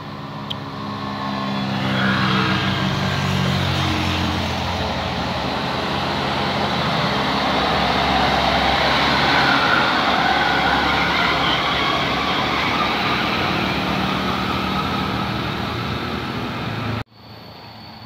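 Engine of a red medium-sized bus coming round a bend and driving close past, getting louder from about two seconds in and staying loud as it passes. The sound cuts off suddenly about a second before the end, leaving quieter traffic noise.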